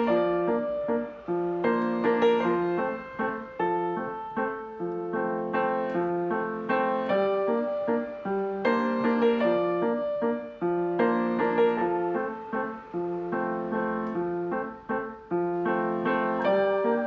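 Background piano music: struck notes in a steady, repeating pattern.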